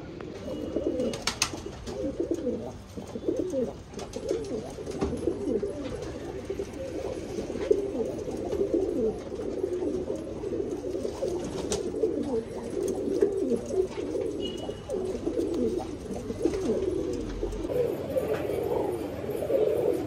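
Several highflyer pigeons cooing at once, their low warbling coos overlapping continuously. A few faint clicks come through now and then.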